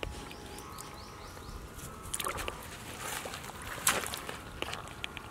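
Squelching of wet mud and scuffing as an eel is pulled out of its muddy hole on a hook and handled, with a sharp click about four seconds in.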